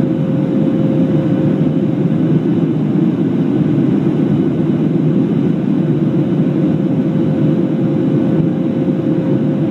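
Steady cabin roar of a jet airliner in its climb after takeoff, heard from a window seat over the wing: engine and airflow noise with a faint steady hum running through it.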